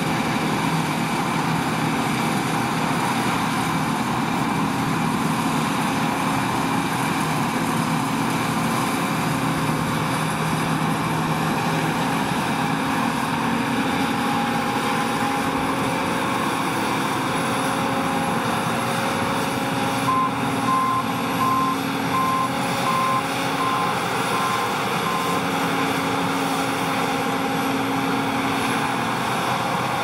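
John Deere T560 combine harvester running steadily under load as it cuts and threshes a crop, a continuous engine and machinery drone. About two-thirds of the way through, a run of short, evenly spaced beeps sounds for several seconds.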